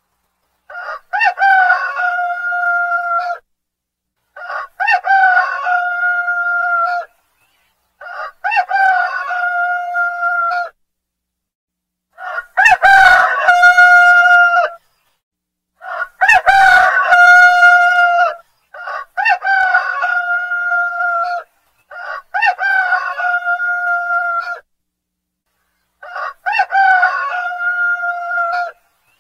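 Rooster crowing, eight cock-a-doodle-doos about every three to four seconds, each ending in a long held note, with silence between them.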